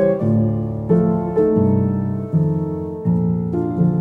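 Background piano music, a new chord or note sounding about every half second.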